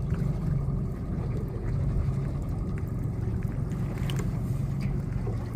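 Boat motor running at a steady low hum, with a few faint clicks about four seconds in.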